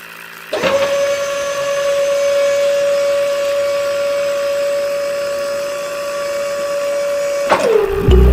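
Small electric motor whining at a steady high pitch. It switches on suddenly about half a second in, runs evenly for about seven seconds, then winds down with falling pitch near the end.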